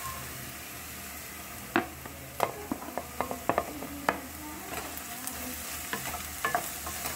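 Onions frying in oil in a nonstick kadai, sizzling steadily. From about two seconds in, a wooden spatula knocks and scrapes in quick irregular clicks against a plate and the pan as ginger-garlic paste is scraped in and stirred through.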